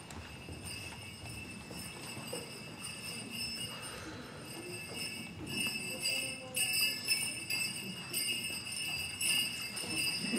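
Small bells jingling continuously, growing louder about halfway through.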